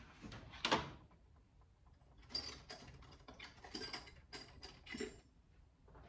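Faint, scattered clicks and light taps of small hand tools being picked up and handled: one sharp click about a second in, then a quick cluster of a dozen or so between about two and five seconds in.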